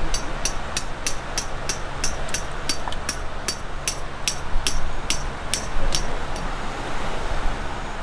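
A steady low rumble like a vehicle in motion, with a run of sharp, evenly spaced ticks at about three a second that stops about six seconds in.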